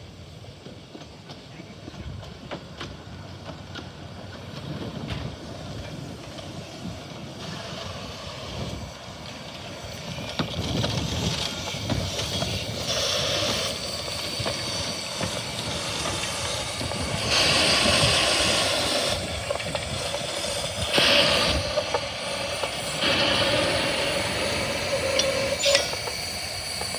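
Romney, Hythe & Dymchurch Railway's 15-inch-gauge steam locomotive Green Goddess moving along the platform. It grows louder as it comes close, and loud bursts of steam hiss come a little after the middle and again about three-quarters through, over a low rumble and knocking.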